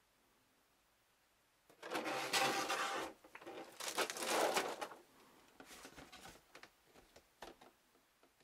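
Clear plastic blister tray crackling as it is handled: two loud crinkling bursts of about a second each, starting about two seconds in, then fainter rustles and taps.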